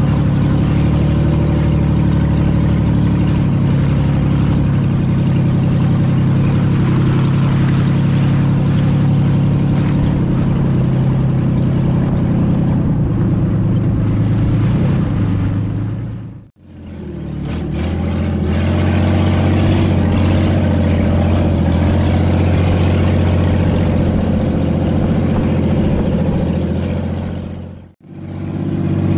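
Off-road 4x4's engine running at steady revs while driving, heard from on board. The sound fades out and back in twice, about 16 and 28 seconds in.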